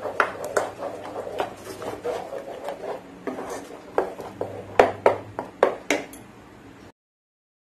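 Wooden spatula stirring thick mango halwa in a nonstick pan, scraping through the paste and knocking against the pan, while the halwa is cooked down until it thickens and comes together. A run of sharper knocks comes about five seconds in, and the sound cuts off suddenly near the end.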